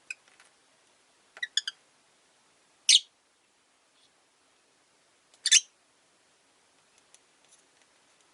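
Rosy-faced lovebird giving short, sharp, high chirps with pauses between: a quick cluster of small chirps about a second and a half in, and two loud single calls at about three and five and a half seconds.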